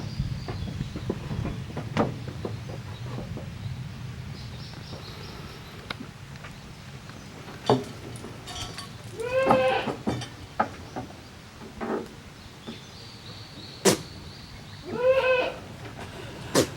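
Kid goats bleating twice, about nine and fifteen seconds in, each call short and high. Scattered sharp knocks in between.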